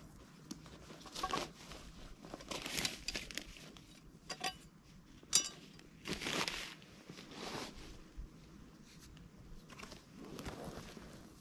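Rustling and crinkling of clothing and gear being handled, in irregular bursts as a person shifts while sitting on a forest floor, with one short sharp click about five seconds in.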